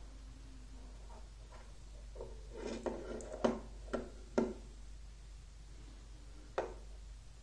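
Magnetic rods and steel balls clicking as they snap together while the magnetic framework is pressed into a dome by hand: a quick run of sharp clicks about three to four and a half seconds in, and one more click near the end.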